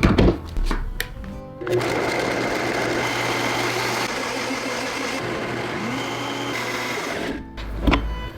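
Electric blender motor running steadily for about five and a half seconds, grinding a wet seasoning paste, then switching off. A few knocks come just before it starts and just after it stops.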